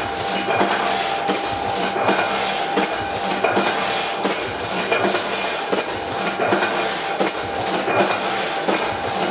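Heidelberg Windmill platen letterpress running, its mechanism clacking in a steady rhythm of roughly one and a half clacks a second over a constant hiss.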